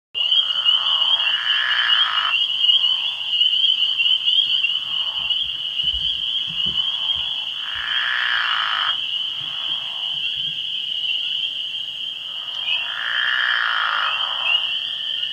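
Pickerel frogs calling: low, drawn-out snoring calls, three loud ones of about one and a half to two seconds each, with fainter calls between. A steady high-pitched background sound runs under them.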